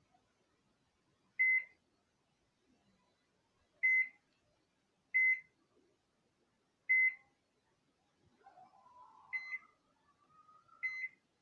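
Microwave oven beeping: six short, high beeps at uneven intervals, with a fainter rising sound under the last two.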